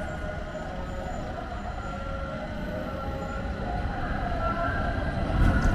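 City street traffic: a vehicle rumbling past, growing louder toward the end.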